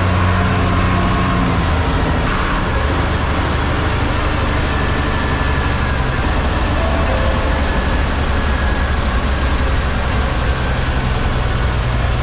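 MSRTC bus engine running and road noise, heard from inside the moving bus; the engine note drops about two seconds in, then runs steadily.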